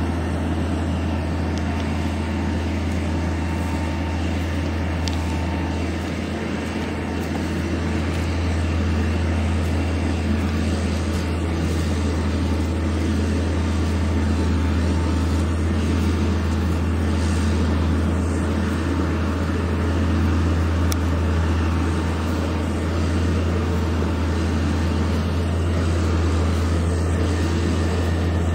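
A large engine running steadily: a constant low drone under a broad noisy wash, swelling slightly now and then.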